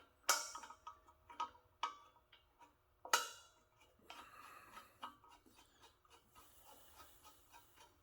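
Light metal clicks and ticks of a gas regulator's inlet nut being threaded by hand onto an oxygen cylinder valve. A few sharp clicks come in the first three seconds, the loudest about three seconds in, then fainter ticking.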